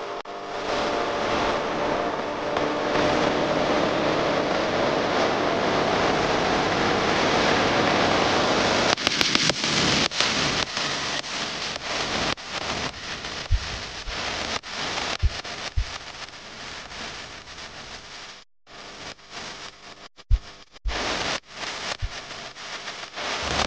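F-35 Lightning II's Pratt & Whitney F135 jet engine running on the runway: a steady rushing noise with whining tones for about the first nine seconds, then a choppy crackling noise that breaks up and cuts out briefly several times.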